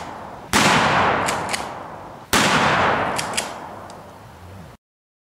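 12-gauge shotgun fired twice, about two seconds apart. Each report rings out and dies away slowly. The sound cuts off suddenly near the end.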